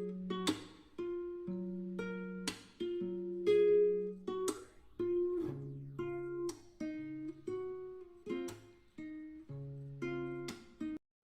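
Background music: a plucked acoustic guitar or ukulele tune with notes and chords struck about once a second.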